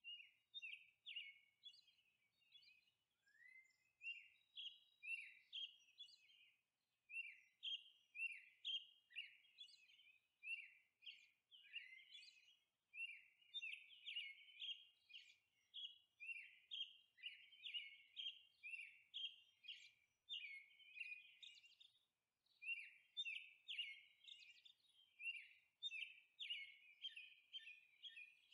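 Faint birdsong: a quick, steady run of short chirps, each falling in pitch, two to three a second, with a couple of brief pauses.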